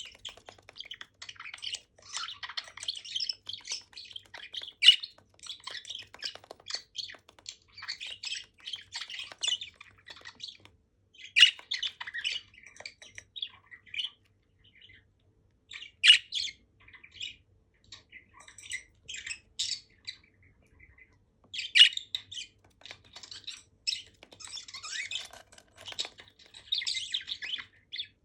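Budgerigars chirping and chattering together in quick runs of short high chirps, broken by pauses, with a few loud, sharp squawks roughly every five or six seconds.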